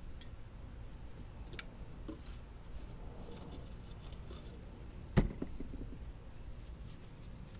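Light metal clicks and one sharp knock about five seconds in, as hydraulic lifters and roller followers are handled and set into an aluminium GM Ecotec L61 cylinder head, over a low steady rumble.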